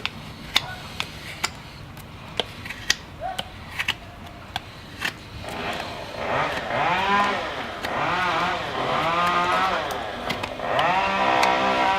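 A few sharp clicks, then, about five and a half seconds in, a small high-speed power tool starts grinding into the hoof wall. Its pitch dips and recovers over and over as it bites and is eased off.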